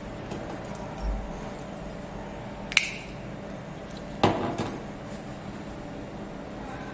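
Two sharp metallic clicks about a second and a half apart as a toggle switch with a red flip cover is worked by hand, over a faint steady hum.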